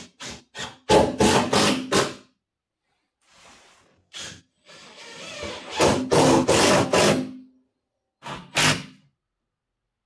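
Cordless drill-driver run in short trigger bursts: several quick bursts in the first two seconds, a longer run of about three seconds in the middle and one more short burst near the end.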